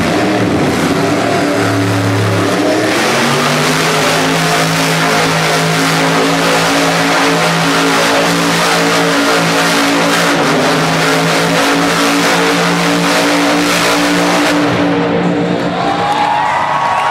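Grave Digger monster truck's supercharged V8 engine held at high revs as the truck spins donuts, a loud steady drone. The engine drops away near the end as the arena crowd starts cheering and whistling.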